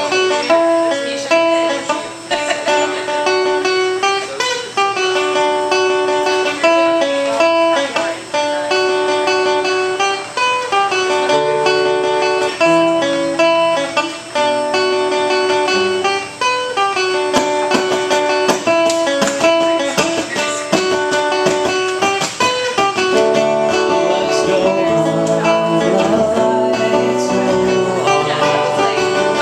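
Two acoustic guitars played together live, picking out a melody of clear single notes, with strummed chords coming in more densely a little past halfway.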